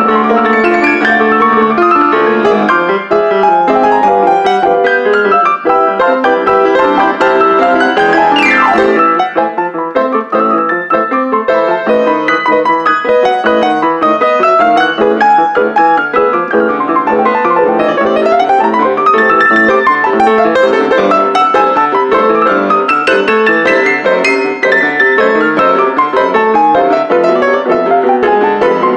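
Grand piano played four hands by two pianists: a loud, busy passage with fast runs sweeping up and down the keyboard several times.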